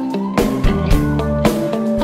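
Music: guitar chords held over a drum beat.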